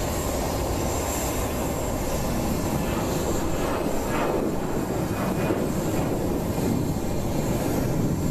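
Steady jet aircraft turbine noise, a low rumble with a thin high whine running throughout.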